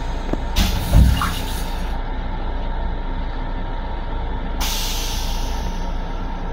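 Steady low rumble of a Long Island Rail Road M7 electric railcar heard inside its restroom. A short burst of air hiss with a thump comes about a second in, and a longer hiss starts near five seconds and fades away.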